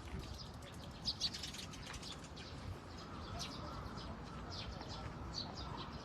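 Birds chirping: a busy run of short, high chirps over a low background rumble.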